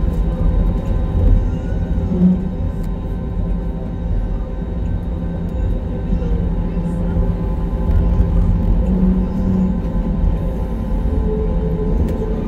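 Cabin noise of a jet airliner taxiing, its engines at idle: a steady low rumble with several steady hum tones laid over it.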